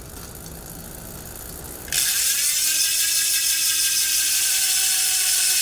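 Rear wheel of an e-bike spinning on a work stand: a faint whir of the drive for about two seconds, then a sudden loud, steady buzz of the freehub ratchet as the cassette stops and the wheel coasts. The wheel runs freely, with nothing rubbing on the newly fitted spoke magnet and sensor.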